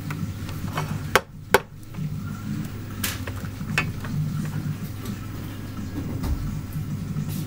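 Small metal tools clicking and tapping against hard parts: two sharp clicks close together about a second in, then a few fainter ones, over a steady low hum.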